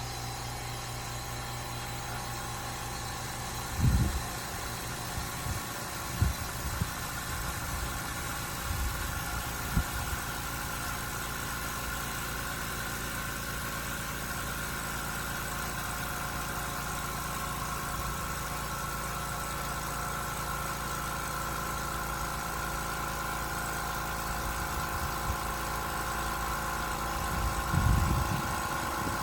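Limodot oil-free electric air compressor running steadily, a constant hum with a few low thumps, the loudest a few seconds in and near the end.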